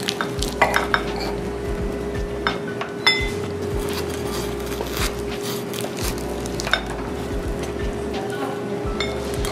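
Steel knife and fork clinking and scraping on a ceramic plate while cutting through a crisp fried samosa, with several sharp clinks spread through, over a steady hum.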